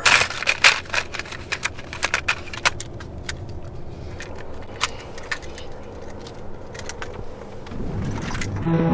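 Plastic cassette tapes and their cases clattering and clicking as they are rummaged through on a car seat, over the low hum of the car. Near the end a tape's music starts playing.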